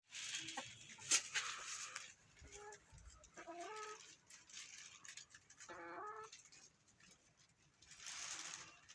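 Domestic hen clucking: three short calls, about two and a half, three and a half and six seconds in, over a faint hiss, with a sharp click about a second in.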